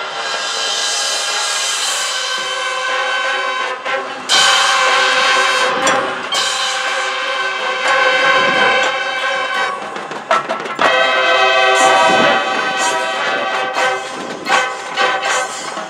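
High school marching band playing a loud passage of sustained brass chords over drums and front-ensemble percussion. Sharp accented hits come in about four seconds in and again around six and eleven seconds.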